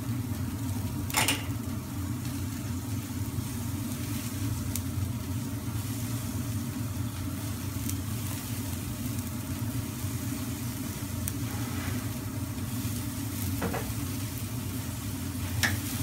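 Skewered lamb lule kebabs sizzling over a grill, a steady hiss on top of a constant low hum. A few light clicks sound through it, one about a second in and two near the end.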